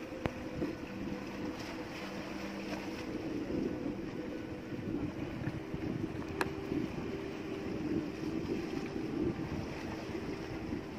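Steady hum of a motor outrigger boat (bangka) with wind on the microphone and water washing around the bamboo outrigger. A single sharp click about six and a half seconds in.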